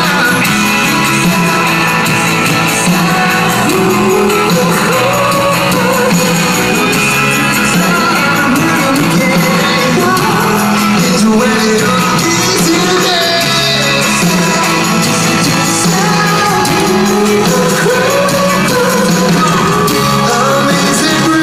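Live rock band playing loud in a large hall: a lead singer's voice over electric guitar and drums.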